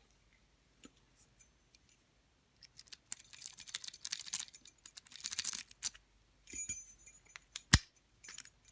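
Lock-picking rakes and a padlock being handled: a few light clicks, then several seconds of jingling, rattling metal with ringing clinks, and one sharp metallic click near the end.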